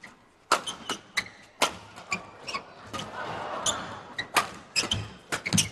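Badminton rally: rackets strike the shuttlecock again and again in sharp cracks, roughly one every half second to second. Court shoes squeak on the mat between the hits, and a crowd murmur swells briefly about midway.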